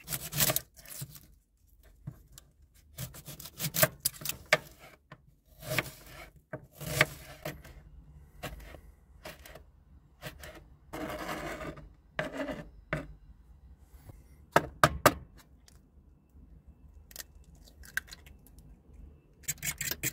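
Kitchen-knife cuts and scrapes on a chopping board as onion and red chillies are sliced and chopped, in irregular strokes. Just before the end a fork starts beating eggs in a metal Ridgemonkey pan as a run of quick, even taps.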